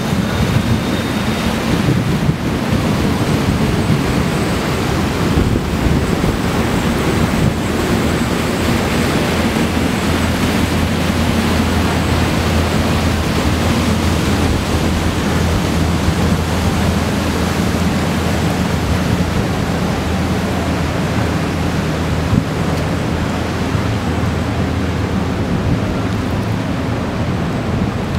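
A motor barge's engine running steadily under way, a low even drone, with wind buffeting the microphone.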